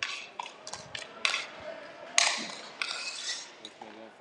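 Inline hockey play: a string of sharp clacks from sticks striking the floor, each other and the puck, with the loudest hit about two seconds in followed by about a second of scraping noise.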